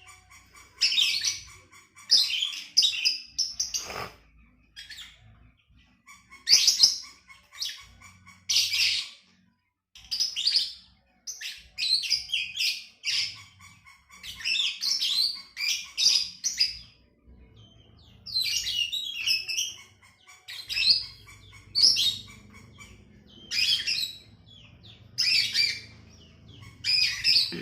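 A songbird singing in short bursts of high, rapid chirping notes, a new phrase every second or two with brief pauses between.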